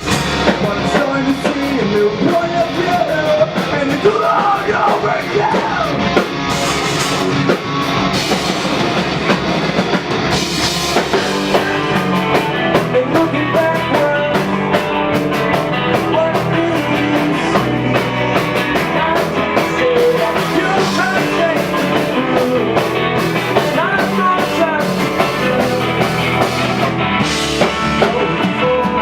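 Rock band music: drum kit, electric guitar and singing, starting suddenly.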